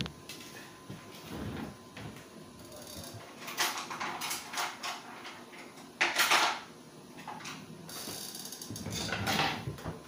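Handling noises: irregular bursts of rustling and crinkling, the loudest about six seconds in, with a short spell more near the end.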